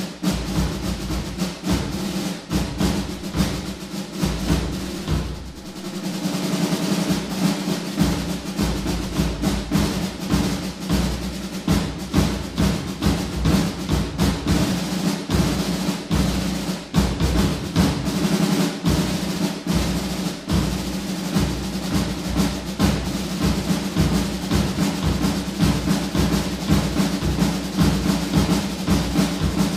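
Drum set played with sticks in a rudimental swing-style solo: fast rolls and dense accented strokes on the drums, dipping briefly softer about five seconds in.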